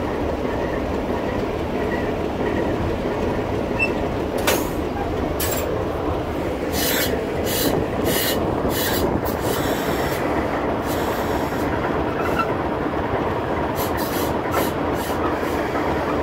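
Alco RS-3 diesel locomotive under way, heard from the cab: a steady engine and running rumble. Through the middle part, short, sharp, high clicks and hisses come at irregular intervals.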